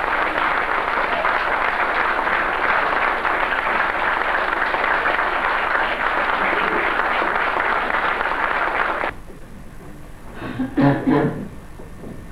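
Audience applauding, the clapping cutting off abruptly about nine seconds in; a few brief pitched sounds follow near the end.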